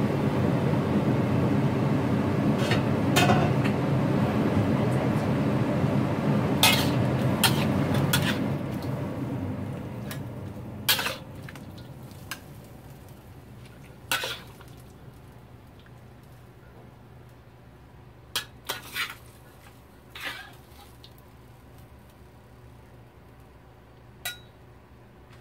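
Metal spatula scraping and clinking against a wok and a ceramic bowl as stir-fried squid and napa cabbage is scooped out, in scattered separate strikes. A steady low rumble under the first part fades out about eight to ten seconds in.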